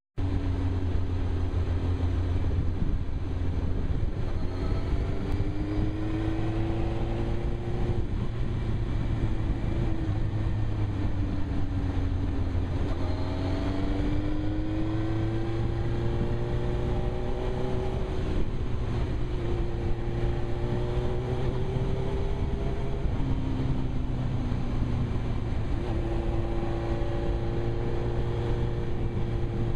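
Suzuki GSX-R 1000 inline-four motorcycle engine heard from a helmet camera, its pitch climbing as the rider accelerates and dropping as he backs off, several times over, with a steady low wind rumble on the microphone.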